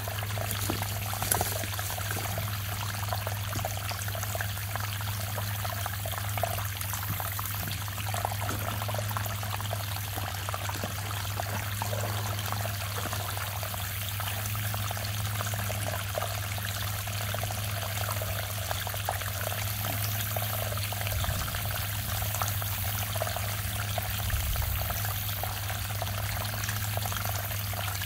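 Lake water pouring steadily out of the end of a black drain pipe and splashing onto the ground below: the outflow of a lake's exit pipe running freely.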